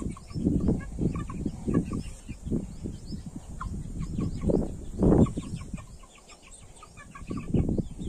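Young Aseel chickens giving many quick, high peeping calls and clucks, over irregular low thumps and rumbling.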